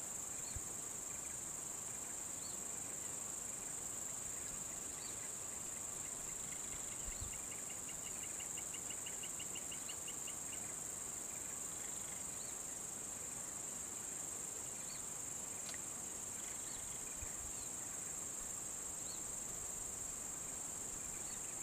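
Steady high-pitched insect chorus, constant throughout. About seven seconds in, a fast pulsed trill runs for around three seconds, and faint short chirps repeat every two to three seconds.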